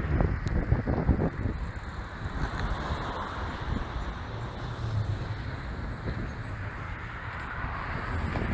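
Steady road traffic noise of cars passing on a busy city bridge, heard from a moving bicycle, with buffeting on the microphone during the first second or so.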